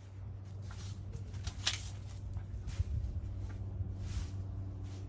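Puppy rummaging in a pile of cut leaves and twigs: several short rustles, the loudest about a second and a half in, over a steady low background hum.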